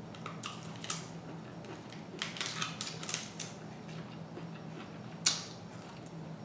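Crab shell being cracked and picked apart by hand: scattered small crackles and clicks, with one sharp crack about five seconds in.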